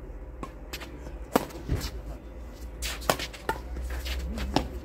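Badminton rackets hitting a shuttlecock during a doubles rally: a string of sharp smacks at irregular intervals, roughly half a second to a second apart, over a steady low hum.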